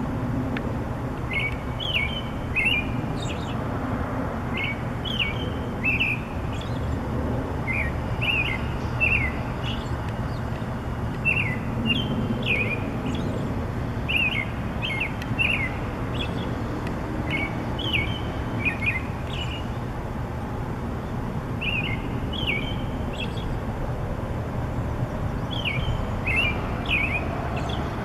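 Songbird singing repeated short phrases of quick, high chirps, each phrase about a second long with pauses of a second or two between. A steady low background rumble runs underneath.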